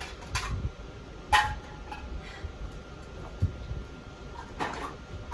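A few sharp clicks and clacks of small objects being handled at a toy checkout counter, the loudest about a second in, over a low background hum.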